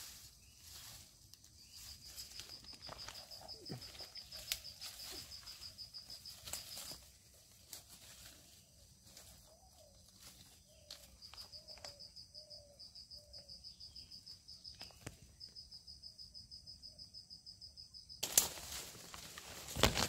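Rural outdoor ambience with a high, fast-pulsing trill that starts and stops three times, and faint short chirps in the middle. About two seconds before the end, a sudden loud burst of noise cuts in.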